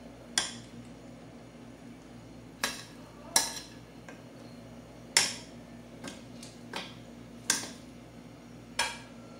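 Wire skimmer ladle clinking and tapping against a metal cooking pot and bowl while parboiled rice is scooped and spread in a layer: about seven sharp metallic taps at irregular intervals.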